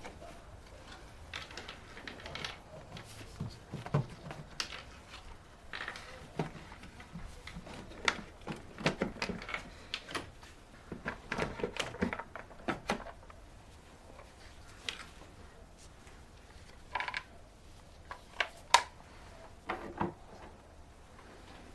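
Hands working the plastic air filter housing and its clips: irregular clicks, knocks and rustling in loose clusters. The loudest is a single sharp click about three-quarters of the way through. The engine is not running.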